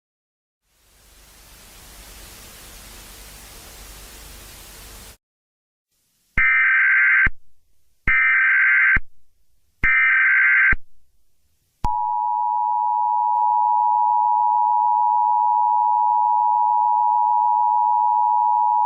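Emergency Alert System broadcast sequence. First comes about four seconds of static hiss, then three short buzzy EAS header data bursts about a second each. From about twelve seconds in, the steady two-tone EAS attention signal sounds.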